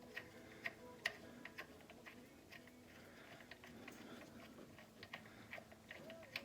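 Faint, irregular clicking of a ratchet wrench backing out a 14 mm engine-mount bolt, a few clicks a second.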